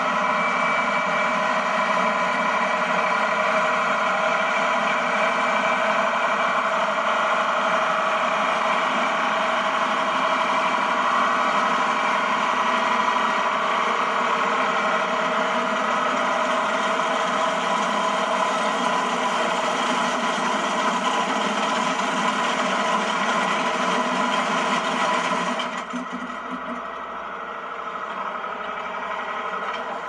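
Ford tractor engine running steadily while powering a one-row International Harvester corn picker picking ear corn, engine and picker machinery sounding together. Near the end the sound drops suddenly quieter and duller.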